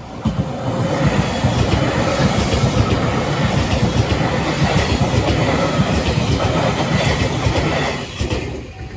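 Train passing over a level crossing, its wheels clattering over the rail joints in a rapid, loud rhythm. The clatter starts sharply just under a second in and dies away near the end, where the crossing's warning bell can be heard ringing again.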